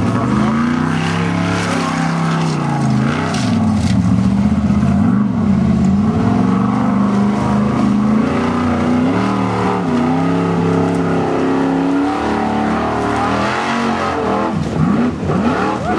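Formula off-road buggy's engine revving hard, its pitch rising and falling over and over as the throttle is worked, with a sharp drop and quick climb again near the end.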